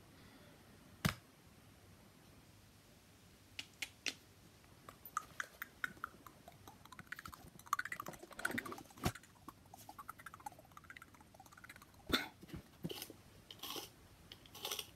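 Small objects being handled by hand at a desk: a sharp click about a second in, then scattered light clicks, taps and rustling.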